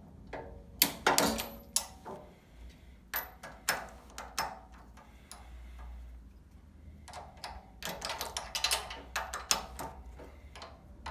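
Metal clicks of a torque wrench tightening the nuts on the steering rack's connecting bolt, set to 35 newton metres. Single clicks come every second or so at first, then a quick run of ratcheting clicks about seven seconds in, as the bolts are brought up to torque.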